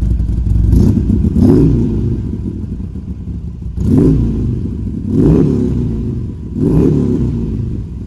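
Harley-Davidson Sportster 883 Iron's air-cooled V-twin running through a freshly fitted Supertrapp 2-into-1 SuperMeg exhaust, idling with four quick throttle blips.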